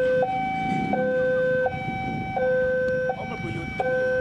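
Railway level-crossing warning alarm sounding two electronic tones that alternate high and low, each held about 0.7 s, signalling a train approaching the crossing. A low rumble runs underneath.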